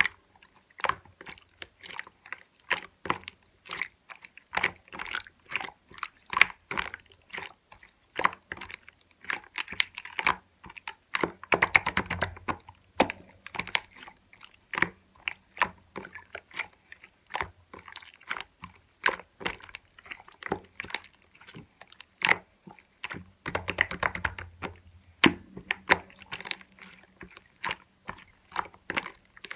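Slime being squished and poked by hand: a steady run of sticky clicks and pops, a few each second, thickening into denser crackling twice, about twelve and about twenty-four seconds in.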